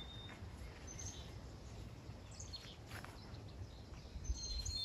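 Quiet outdoor ambience with a low wind rumble. A few short, high bird chirps come near the start and again in a cluster near the end, with a couple of faint soft knocks in between.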